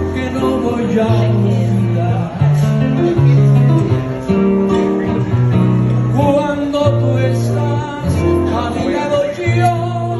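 Live acoustic guitar played with a steady run of low plucked notes while a man sings into a microphone.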